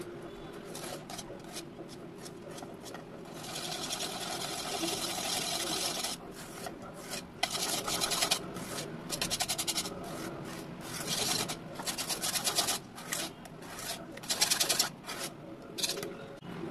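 A wire whisk beating flour into wet batter in a metal bowl. The rapid scraping strokes start a few seconds in and come in runs of a second or more, with short pauses between them.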